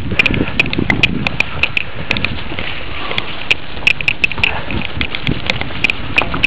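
Mountain bike jolting over a rough track: rapid, irregular clattering and knocks from the bike and camera mount, over a steady low wind noise on the microphone.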